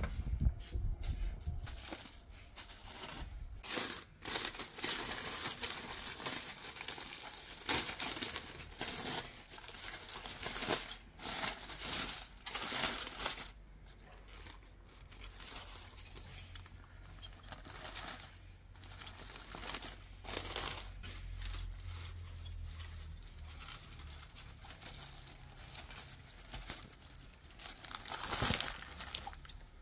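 Aluminium foil and baking paper crinkling and rustling in irregular handfuls as foil-wrapped beef shank parcels are opened up by hand.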